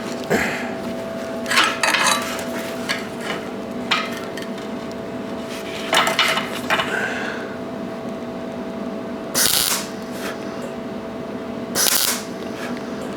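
Short bursts of arc welding, tacking the cut ends of stainless steel wire together, each lasting about half a second to a second, several times over a steady machine hum.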